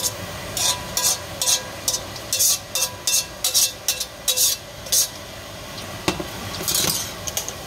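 A metal ladle scraping a hot wok in quick repeated strokes, about two to three a second, as saucy chicken wings are pushed out into a glass baking dish. A soft sizzle runs underneath. After a short pause there are a few more scrapes near the end.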